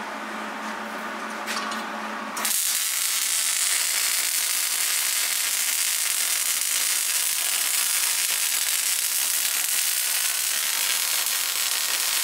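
Hobart wire-feed welder's arc striking about two and a half seconds in, then running as a continuous steady hiss while a bead is laid on steel angle.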